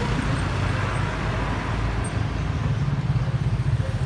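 City street traffic: cars, motorcycles and jeepneys passing with a steady low engine rumble, which grows louder again near the end.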